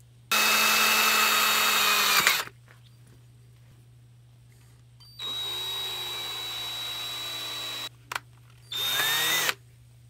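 Cordless drill boring into a brass oxygen-regulator body for a small screw hole, run in three bursts. The first run is long and loud, the second from about five seconds in is quieter and slower, and a short loud burst comes near the end.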